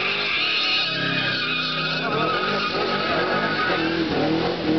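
Holden VQ Caprice V8 doing a burnout: the rear tyres squeal steadily while the engine revs, its pitch rising and falling, then holding a steady note near the end.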